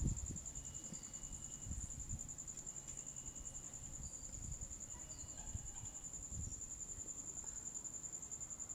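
A steady, high-pitched insect trill, pulsing finely without a break, over faint rustling and soft thumps of cloth being folded and handled on a table.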